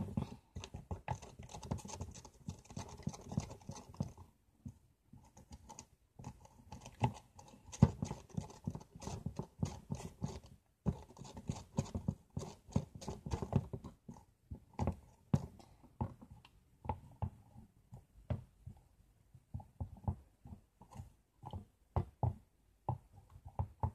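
Nail polish and oil being stirred together into slime in a bowl: a dense run of irregular sticky clicks and scrapes, with a few brief pauses, thinning out in the last third.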